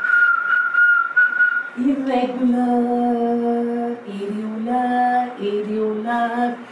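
A long, steady whistled note lasting about two seconds, followed by a woman singing a slow tune in long held notes that step up and down in pitch.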